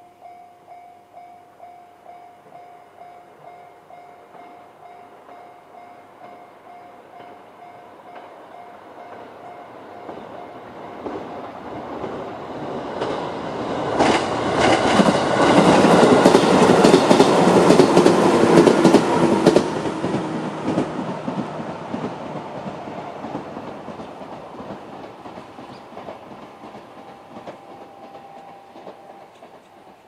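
Japanese level-crossing warning bell, the JR standard electronic sound, ringing in an even repeating pattern, while a JR 211 series electric train passes. The train grows louder, is loudest with its wheels clattering over rail joints from about fourteen to twenty seconds in, then fades away.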